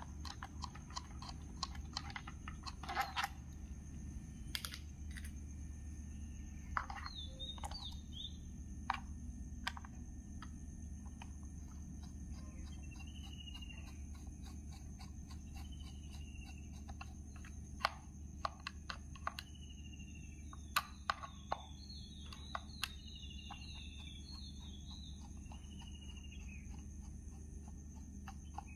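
Screwdriver and plastic parts of a moulded case circuit breaker clicking and tapping as its rotary handle assembly is unscrewed and worked loose: scattered sharp clicks, with a few louder knocks about three seconds in and again around eighteen to twenty-two seconds. Short falling chirps sound faintly in the background.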